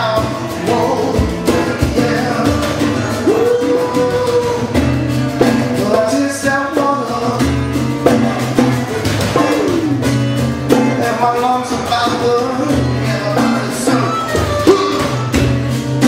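A live acoustic band plays a song: strummed acoustic guitars and a hand drum keep a steady beat under a male sung vocal.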